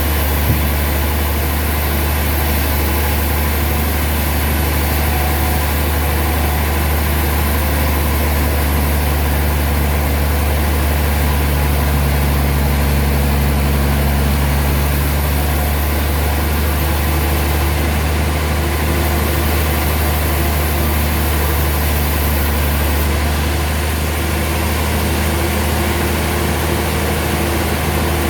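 Sawmill machinery running steadily: a loud, unchanging low engine hum.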